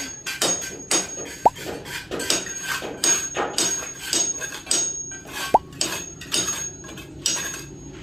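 Hammering at a building site: irregular sharp knocks, two or three a second, some with a metallic clink. Two brief high pings sound about a second and a half in and again about five and a half seconds in.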